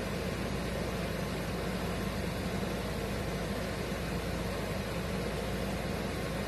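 Steady hiss with a low hum under it, with no distinct knocks, strikes or voices.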